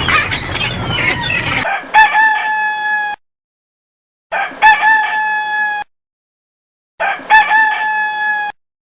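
A rooster crowing three times, each crow about a second and a half long with a held, steady pitch and the same shape each time, separated by silences. A different, busier animal sound cuts off just before the first crow.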